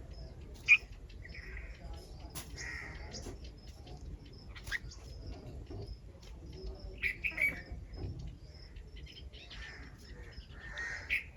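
Birds calling: repeated crow caws mixed with many quick, high chirps from smaller birds, with a sharp loud call just under a second in and a cluster of calls about seven seconds in.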